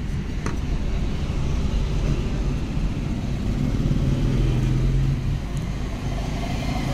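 Steady low rumble of a motor vehicle engine running, with a deeper hum that strengthens for a second or so around four to five seconds in.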